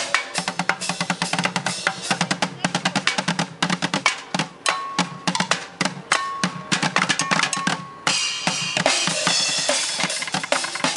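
Bucket drumming: three drummers beating plastic buckets and metal pails with drumsticks, along with a cymbal and hi-hat, in a fast, dense rhythm. About eight seconds in, cymbals crash and wash over the beat.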